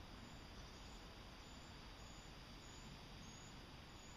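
Near silence: a faint steady hiss with a faint high-pitched chirp repeating steadily, a little under a second apart.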